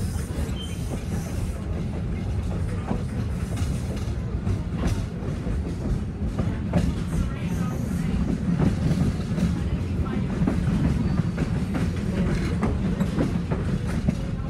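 Passenger train car riding along the track: a steady low rumble of the wheels with scattered clicks and knocks, growing a little louder partway through.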